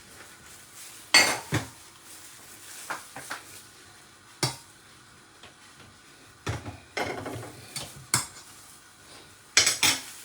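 Kitchen utensils and dishes clattering: irregular sharp knocks and clinks, the loudest about a second in and a quick run of them near the end.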